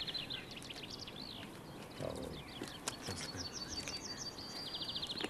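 Birds chirping, with a rapid high trill of repeated notes at the start and again over the last two seconds.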